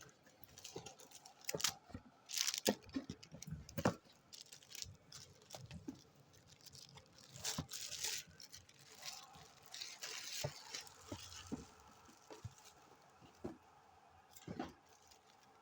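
Shoe packaging being handled and unwrapped: irregular rustling and crinkling with scattered small clicks and crackles, the loudest crackles about two to four seconds in and again near the end.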